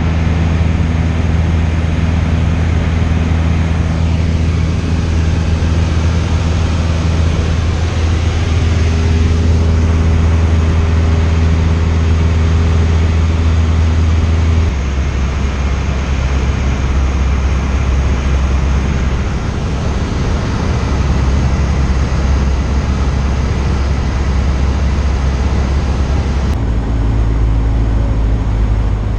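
Cessna 172 engine and propeller droning steadily in flight, heard inside the cabin with a rush of air noise. The drone drops a step in pitch about halfway through and rises again near the end.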